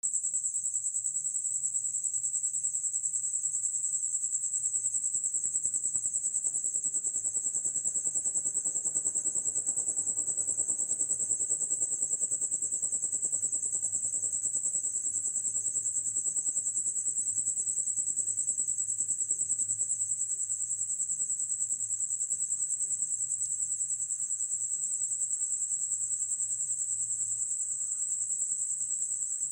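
Steady high-pitched trilling of night-singing insects, unbroken throughout, over a faint low hum.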